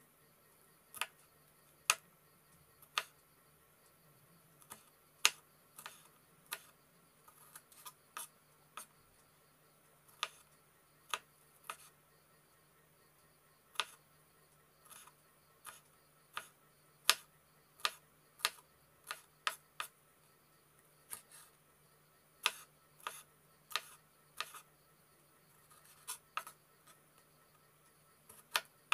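Kitchen knife chopping a green bell pepper on a wooden cutting board: short sharp taps of the blade hitting the board, about one a second at first and coming quicker in the second half.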